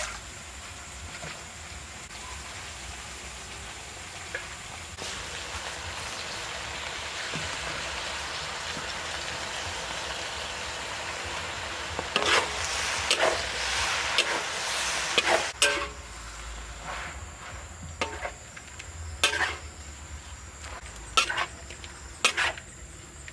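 Food sizzling steadily in a hot pan, the sizzle growing louder a few seconds in. About halfway through, a utensil scrapes and stirs in the pan, followed by several separate sharp knocks and clinks of the utensil against the pan.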